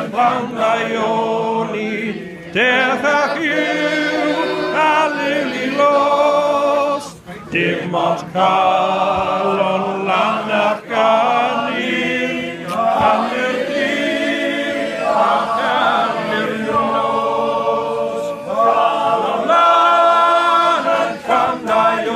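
A men's choir singing unaccompanied, holding sustained chords in phrases with brief breaks between them.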